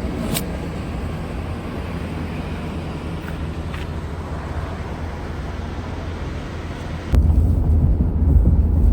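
Steady running noise of a moving vehicle. About seven seconds in it cuts suddenly to a louder low rumble.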